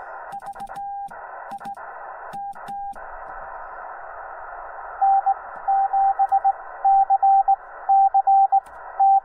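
Morse code from a Yaesu FT-891 transceiver's speaker. For about the first three seconds it is the sidetone of hand-sent code from a straight key, with sharp clicks as the key makes and breaks. Then comes steady band hiss from the receiver, and from about five seconds a much louder keyed tone at the same pitch spells out Morse characters: another station's CW signal coming in.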